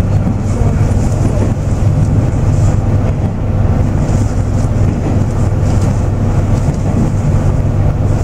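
Tosa Kuroshio Railway 9640-series diesel railcar running at speed, heard inside the passenger cabin: a steady low engine drone mixed with the rolling noise of wheels on rails.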